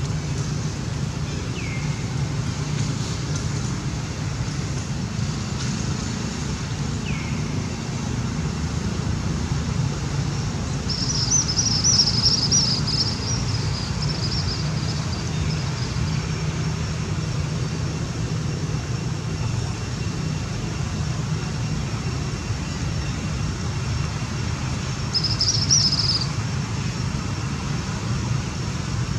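Infant long-tailed macaques squealing in two high-pitched bouts, a longer one about eleven seconds in and a short one near twenty-five seconds, over a steady low outdoor rumble. Two short high chirps come in the first seven seconds.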